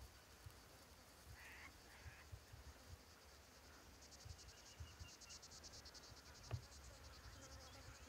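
Near silence with faint insects trilling, most noticeable from about four to seven seconds in, and one soft click.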